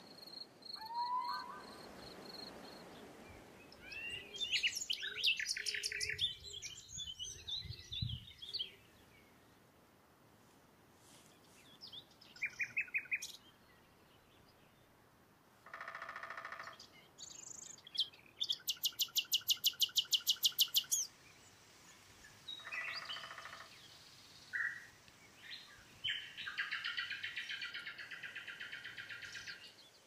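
Several woodland birds calling in turn over faint forest background: quick chirping phrases, a fast even trill of about two and a half seconds a little past halfway, and short buzzy calls near the end.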